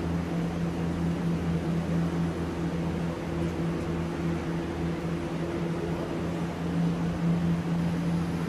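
Greenhouse ventilation or climate-control machinery running: a steady low hum over a hiss, with a higher tone joining for a few seconds in the middle.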